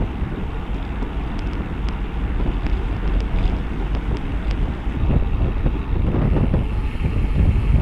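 Wind buffeting the microphone of a bike-mounted camera riding in a road cycling bunch: a steady low rumble of wind and road noise, with a few faint ticks in the first half, getting louder over the last few seconds.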